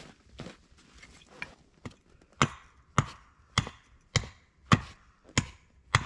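Axe chopping into a dense oak billet, hewing it into a splitting wedge: a few light knocks, then, from about two and a half seconds in, a steady run of seven chops a little over half a second apart.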